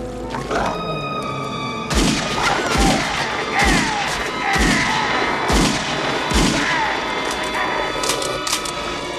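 Film soundtrack: dramatic music with held tones, cut through by a run of six heavy booms about a second apart, starting about two seconds in.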